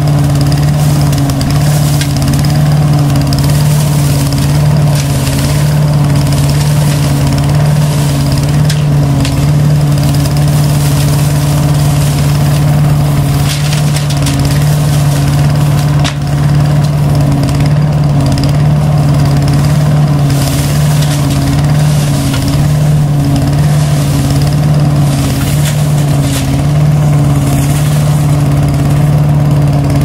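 Homemade leaf vacuum on a Wheel Horse garden tractor running steadily: a loud, even engine drone with rushing air as raked leaves are sucked into its intake hose, and brief rattles now and then.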